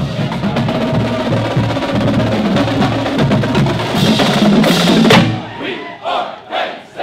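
Marching drumline of snare drums, tenor drums and bass drums playing a fast cadence, which stops on one loud hit about five seconds in. Crowd shouts and cheers follow.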